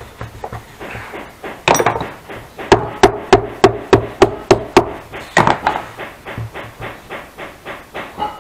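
Hammer blows on the cantle of a saddle tree as a reinforcement is fastened to it: a hard double blow about two seconds in, then a steady run of heavy strikes at about three a second, followed by lighter, quicker taps.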